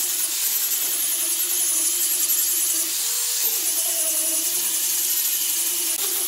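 Electric angle grinder with a sanding disc grinding and shaping a solid wooden handrail curve: a steady high-pitched whine, its motor pitch wavering as the disc is pressed into and eased off the wood.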